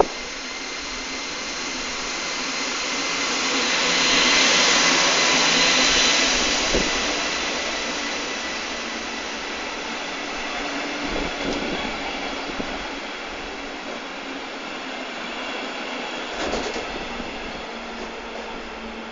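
DB class 143 electric locomotive and double-deck coaches rolling into the station. The sound is loudest as the locomotive passes, about four to six seconds in, then settles into the steady run of the coaches going by. A faint high whine runs under it, and there are a few sharp knocks.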